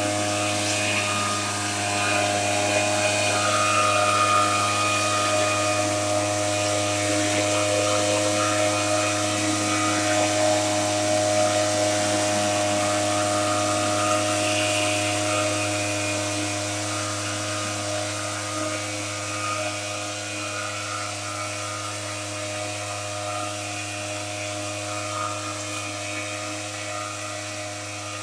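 Motorized backpack mist blower running steadily: its two-stroke engine and fan hold one constant pitch while it blows a spray mist. It grows fainter over the second half as the sprayer moves away.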